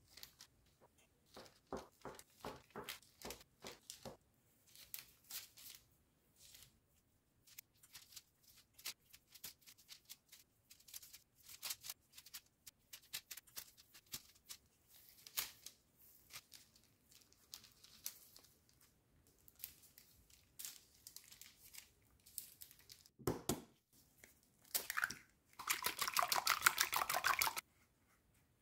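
Gloved hands handling and twisting strips of soft yeast dough on parchment paper: faint, irregular crinkling and rustling of the paper with light taps and clicks. A brief, fast run of scratchy strokes near the end is the loudest part.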